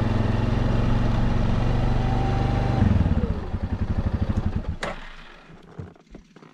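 Quad bike engine running steadily, then dropping to a slow, chugging idle about three seconds in and dying away. A single sharp crack comes near the end.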